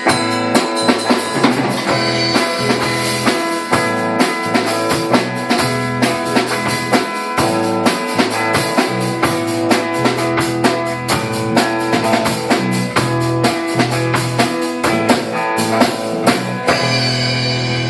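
A band playing, with a drum kit keeping a steady beat under guitar. Near the end the drums stop and the last notes ring on.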